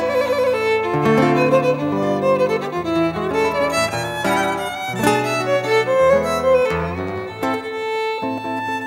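Violin and acoustic guitar playing a tango as a duo. The violin carries the melody with vibrato over the guitar's bass notes and chords, and holds one long note near the end.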